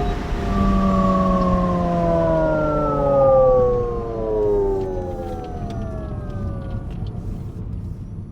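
Alpine A290's synthesized electric-motor sound, a chord of several tones, sliding steadily down in pitch over several seconds and fading out near the end, over a low rumble.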